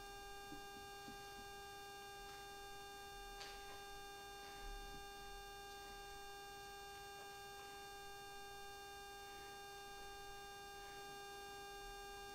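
Very quiet room tone with a steady hum of several fixed tones and a few faint soft clicks.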